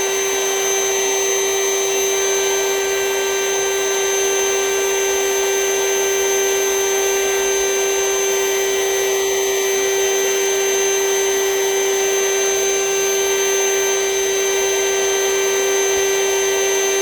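Vacuum running steadily with a high, even whine, drawing the air out of a space-saver storage bag packed with plush toys.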